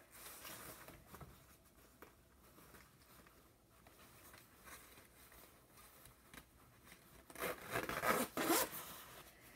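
A stuck jacket zipper being worked: faint rubbing and fiddling at the slider, then about three quick, loud zipping pulls near the end.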